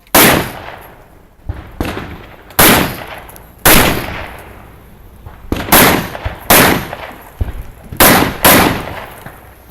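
A rifle fired in an action-shooting course of fire: seven loud, sharp shots at uneven gaps of half a second to two and a half seconds, each trailing off in echo, with a couple of fainter cracks between the first two.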